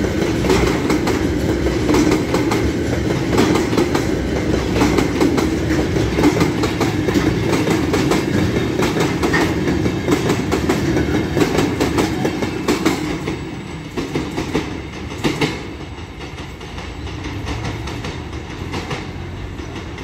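Long freight train of covered hopper wagons rolling past close by, wheels clacking over rail joints with a steady rumble. The last wagons pass about two-thirds of the way in, and the sound drops to a fading rumble as the train moves away.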